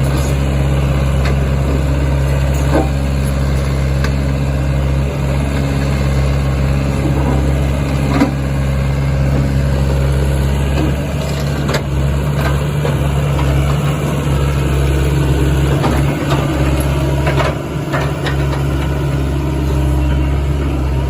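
Sany SY75C-9 mini excavator's diesel engine running steadily at a low hum, with scattered sharp clicks and knocks as the machine is worked.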